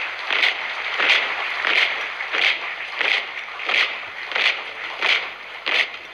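A marching troop's boots stamping the ground in unison, about one and a half stamps a second, in a steady cadence over a constant hiss of wind and crowd.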